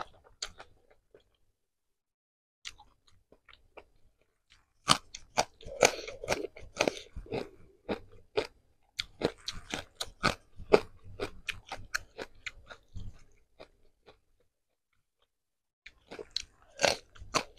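A person chewing and crunching crisp food close to the microphone: a few faint mouth clicks at first, then a long run of dense crunching that stops for a couple of seconds and starts again near the end.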